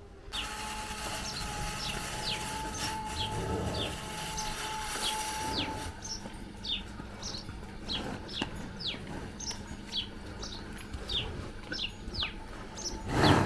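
Small songbirds chirping: many short, quick notes, each sliding downward, repeating over and over. A steady tone sounds under them for the first six seconds, and a loud, short noise comes just before the end.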